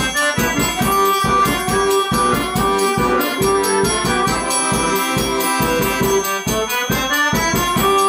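Polish village folk dance music played by a small band: a sustained, organ-like melody over a steady low beat.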